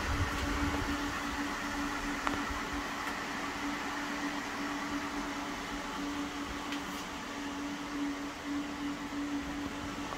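Cooling fans of cryptocurrency mining machines running: a steady whir with a constant humming tone, from a GPU mining rig's graphics-card fans and case fans while it mines.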